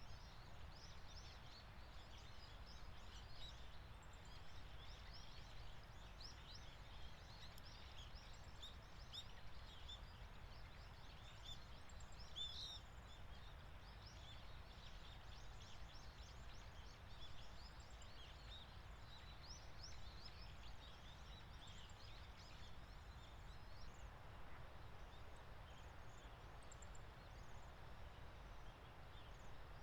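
A flock of waxwings giving many faint, high, thin calls that overlap one another, over a steady low background rumble.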